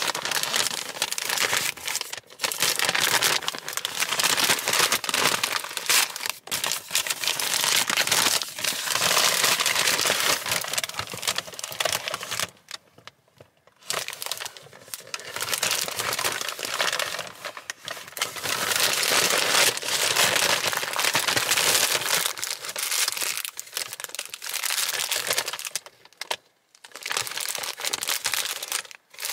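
A kraft paper bag and a clear plastic bag crinkling and rustling as hands open and handle them. The crinkling comes in bouts, with a brief pause about halfway through and another near the end.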